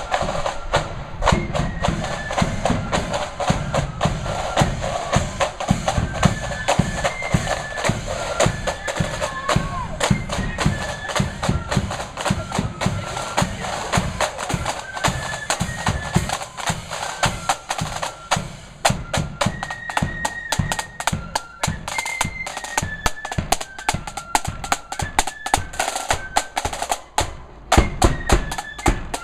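Marching flute band playing a tune: flutes carry a stepping melody over rapid snare drumming and bass drum beats.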